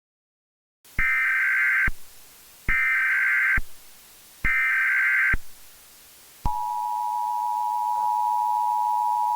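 Emergency Alert System alert tones: three short bursts of the SAME digital header, each about a second long, then the steady two-tone attention signal starting about six and a half seconds in. Together they mark the start of a new emergency alert.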